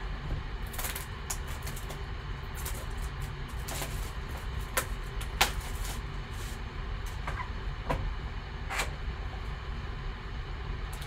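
Plastic shrink-wrap crinkling and tearing as it is stripped off a sealed trading-card box, then the cardboard box being opened: scattered sharp crinkles and taps over a steady low hum.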